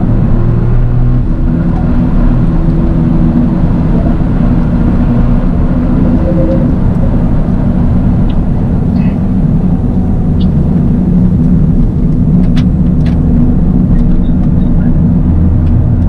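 Toyota GR Yaris's turbocharged three-cylinder engine running steadily on the move, a constant low engine hum mixed with road noise and no hard revving.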